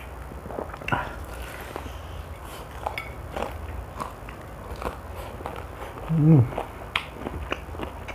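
Close-up mouth sounds of eating crispy fried chicken: small crunches, clicks and chewing as the meat is torn by hand and bitten. About six seconds in comes a short hummed 'mm' from the eater, the loudest sound.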